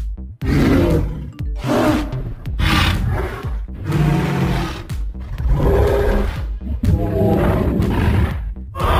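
A string of loud monster roars, dragon sound effects coming one after another with short breaks, over music.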